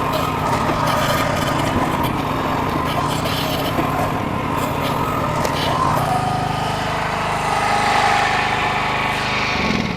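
Small engine running steadily under load, then shut off just before the end.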